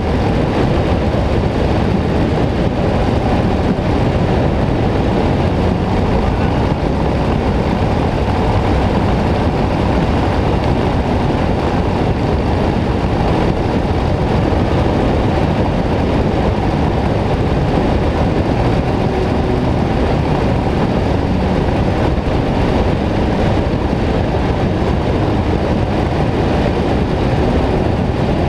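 Harley-Davidson V-twin motorcycle cruising at a steady speed, its engine rumble mixed with wind rush over the front of the bike and no gear changes or revving.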